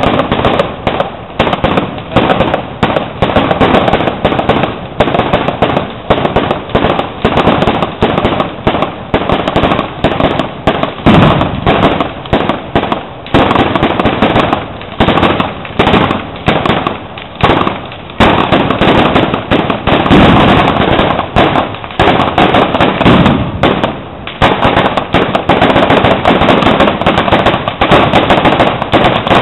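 Firecrackers and fireworks going off in a rapid, unbroken barrage of loud bangs and crackles, several bangs a second.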